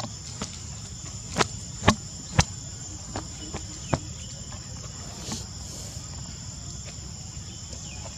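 Steady high-pitched drone of crickets, with a few sharp clicks in the first four seconds, the loudest three about half a second apart.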